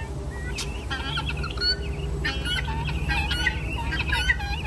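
A flock of poultry calling: many short, overlapping clucks and squawks repeating throughout, over a steady low rumble.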